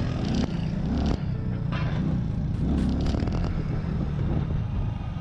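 Motorcycle riding through city traffic, heard from a camera on the rider: a steady low rumble of engine and wind on the microphone.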